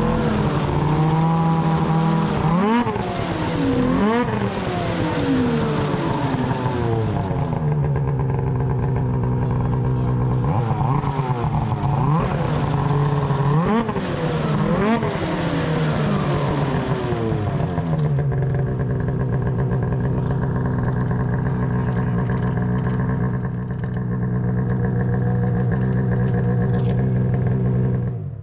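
Polaris Khaos RMK 9R snowmobile's two-stroke twin being revved in repeated throttle blips, its pitch rising and falling, then settling about eighteen seconds in to steady running.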